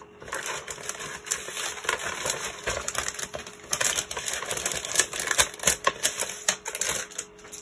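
Paper and plastic packaging being handled and put away, making a dense, irregular crackle of small clicks and rustles.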